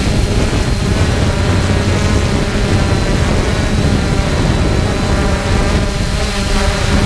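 3DR Solo quadcopter's motors and propellers droning steadily, with a faint high whine, under heavy wind rumble on the microphone.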